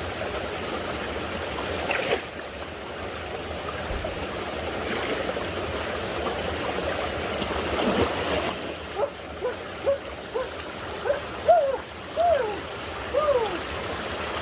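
Creek water flowing steadily. In the second half, several short, high-pitched calls rise and fall.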